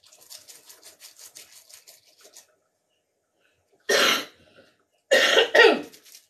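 A person coughing hard three times: once about four seconds in and twice in quick succession near the end. Before that come a couple of seconds of quick, light scraping strokes, about five a second.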